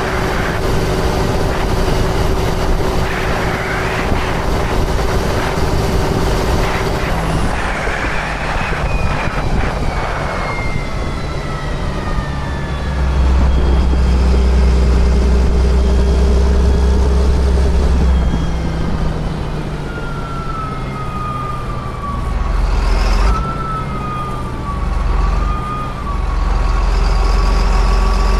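2005 John Deere sprayer running steadily, its engine drone swelling louder for several seconds mid-way and again near the end. A thin whine slowly falls in pitch, then holds steady.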